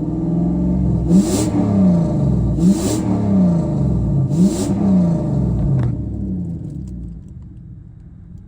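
2006 Saab 9-3 Turbo engine revved three times in quick succession, each rev climbing steeply and falling back, with a brief hiss at each peak; after the third it settles and quietens.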